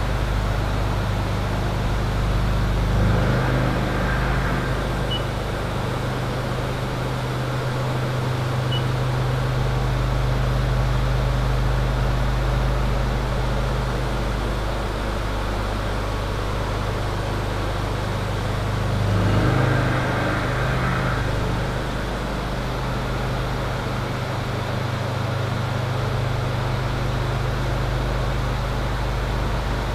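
Haas TM-1P CNC mill roughing a pocket in 304L stainless steel with a roughing end mill under flood coolant: a steady machine hum under the hiss of coolant spray. The cutting noise swells louder twice, about three seconds in and again around nineteen seconds in.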